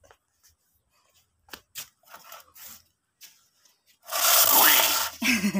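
A few light taps, then a loud rubbing scrape about four seconds in that lasts about a second.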